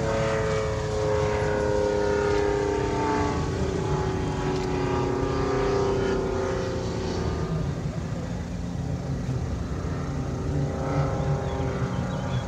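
Rotax 582 two-stroke engine and propeller of a Loehle 5151 Mustang ultralight replica in flight overhead. Its drone slides slowly down in pitch over the first six seconds or so, then holds steadier and a little fainter.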